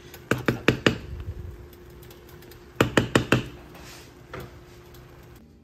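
A spatula knocking against a pot of cooking rice: a quick run of about five knocks near the start, then another run of about five about three seconds in.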